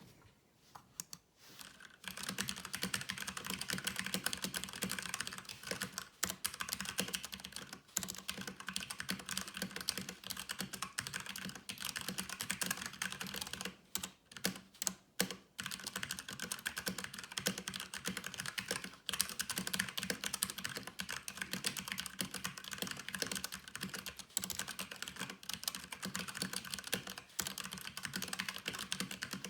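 Fast continuous typing on a Havit 60% mechanical keyboard with brown switches, a dense run of key clicks and clacks, starting about two seconds in with a few short pauses midway.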